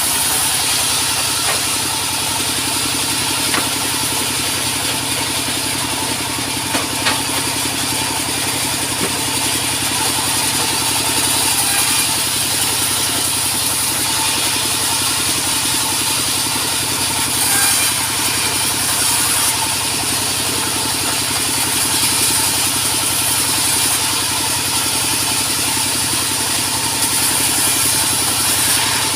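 Sawmill machinery running steadily: an engine-driven sawmill with a constant drone and a strong high hiss.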